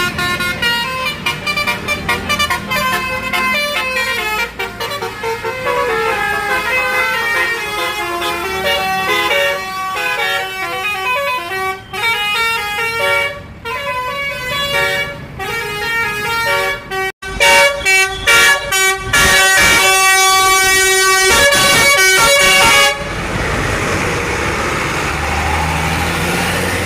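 Basuri telolet horn, a multi-tone musical vehicle air horn, playing a chained melody of quickly stepping notes. Later it turns louder with longer held chords, then cuts off suddenly about four seconds before the end, leaving a steady rushing noise.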